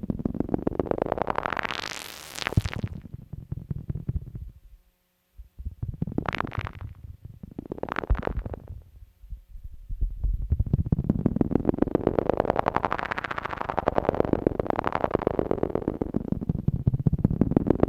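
Eurorack modular synthesizer drone from two oscillators, its tone swept brighter and darker in swells as a joystick is moved, with a rapid pulsing running through it. It cuts out for a moment about five seconds in, then comes back and builds into a long bright swell.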